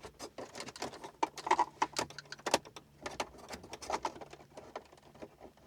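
Light, irregular plastic clicks and small knocks as the rear climate control faceplate of a Range Rover L405 is pulled off its base and handled.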